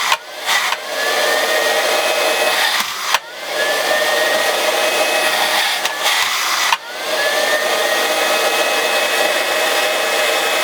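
The suction fan motor of an iCLEBO O5 robot vacuum runs with a steady rushing whine. It cuts out briefly a few times, about a second, three seconds and seven seconds in, and spins back up each time with a rising whine that settles to a steady pitch.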